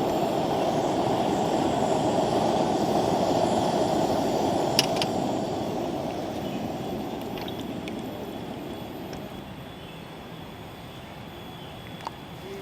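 Portable gas camp-stove burner roaring steadily, with a sharp metal click about five seconds in; the roar then dies down over the next few seconds to a lower level.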